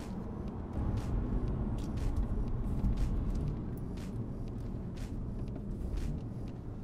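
Engine and road rumble heard inside the cabin of a BMW 1 Series under way, with a freshly remapped ZF automatic gearbox; it grows louder about a second in as the car pulls, then eases off.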